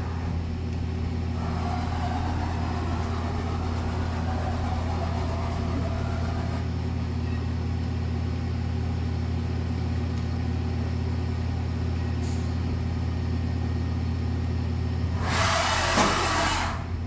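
Fadal VMC 4525 vertical CNC machining center running with a steady low hum. About fifteen seconds in comes a loud hissing rush lasting about a second and a half.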